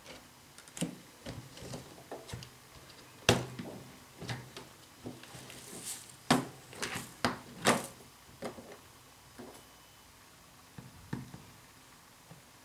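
Irregular clicks, taps and knocks from small tools and parts being handled on a workbench. The sharpest knock comes a little over three seconds in, a quick cluster follows between about six and eight seconds, and it thins to a few light taps near the end.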